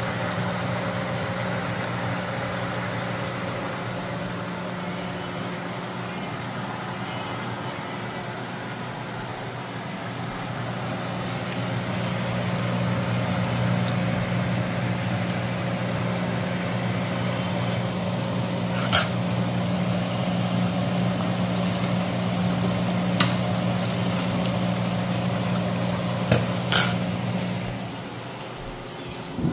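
Steady low mechanical hum, with four sharp clinks in the later part; the hum cuts off near the end.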